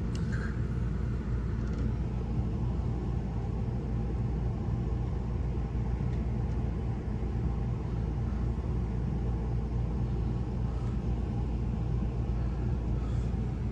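Strong dust-storm wind buffeting the motorhome and the microphone: a steady low rumble of wind noise.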